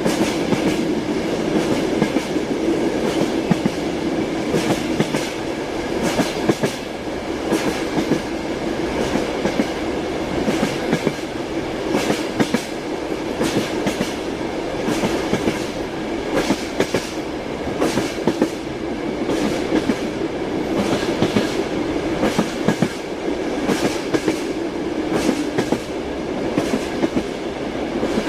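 Moving train: a steady rumble of the running carriage with the wheels clacking over rail joints in a recurring clickety-clack rhythm.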